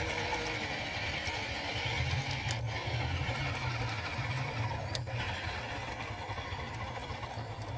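Electric motor and gears of a tubular-chassis RC crawler running steadily as it wades through a muddy puddle.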